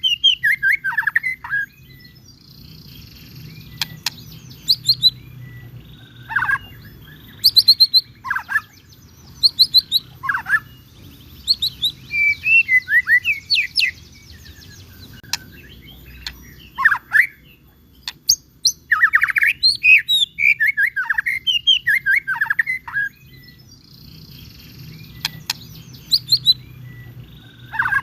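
White-rumped shama (murai batu) singing hard: loud, rapid phrases of whistles and fast trills, in bursts with short pauses between them.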